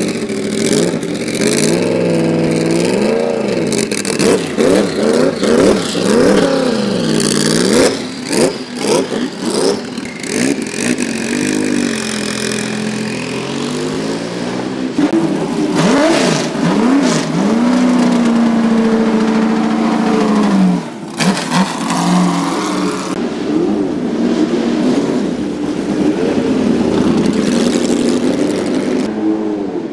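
Sports-prototype race car engines in a pit lane, idling and blipping the throttle with repeated quick rises and falls in revs, then the cars pulling away down the lane.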